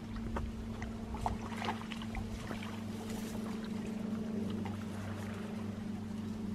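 A steady low motor hum that holds one pitch throughout, with light rustling and small ticks over it.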